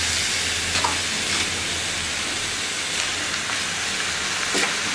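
Raw chicken pieces sizzling steadily in a hot, dry stainless-steel wok as they are stirred with a metal spatula, with a few faint scrapes and knocks of the spatula.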